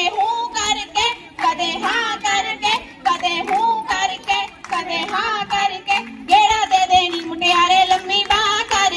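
Girls singing Punjabi boliyan in high, wavering voices, with rhythmic hand clapping keeping the beat of a giddha dance.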